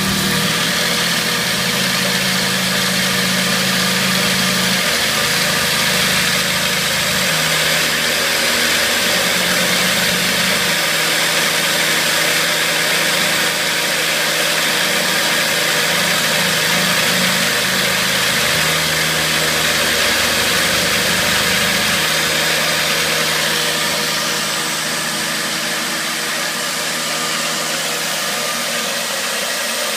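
Sieg X3 bench mill under CNC control cutting a metal block with a 1/2-inch end mill, 0.1 inch deep at 6 inches per minute: the spindle and cut make a steady hiss over a low hum whose pitch steps up and down every few seconds.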